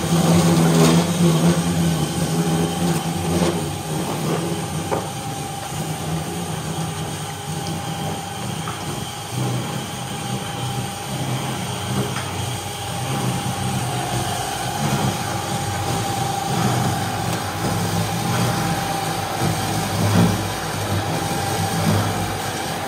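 Homemade rotary veneer peeling machine running, its electric motors turning a log against the knife as a continuous sheet of veneer peels off. A steady whine sits over the machine noise, which is loudest in the first few seconds and then settles.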